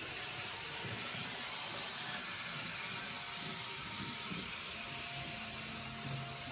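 Kato N gauge model trains running on the layout track: a steady hiss of the small wheels and motors on the rails, swelling a little about two seconds in.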